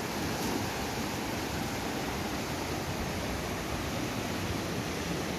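Small, fast mountain river rushing over boulders through shallow rapids: a steady, even rush of water.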